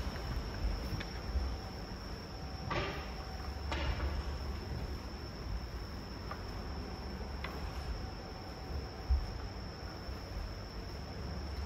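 Crickets trilling steadily at one high pitch, over a low hum, with two soft knocks about three and four seconds in.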